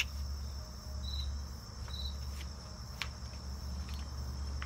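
Insects trilling steadily at a high pitch, with a couple of short chirps and a few faint clicks.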